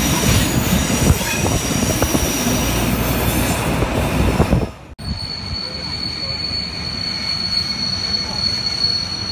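A DB class 212 diesel locomotive running along the track, heard from its outside walkway: a loud engine rumble with wheel noise and wind. About five seconds in the sound cuts to a train rolling into a station, a quieter rumble with a steady high-pitched squeal held over it.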